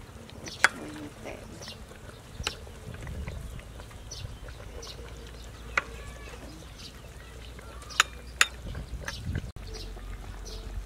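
Metal ladle clinking against a ceramic soup bowl and an aluminium pot while fish soup is ladled out: sharp single clinks every few seconds, with two close together about eight seconds in.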